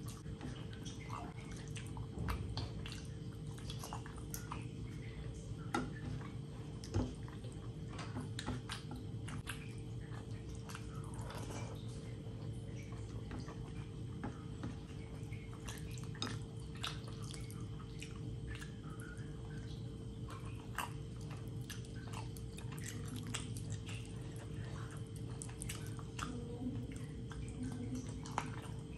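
Fingers squeezing and mixing rice with curry on a plate: many small wet, sticky clicks and smacks, a couple of louder ones about six and seven seconds in, with chewing as a handful goes to the mouth near the end. A steady faint hum lies underneath.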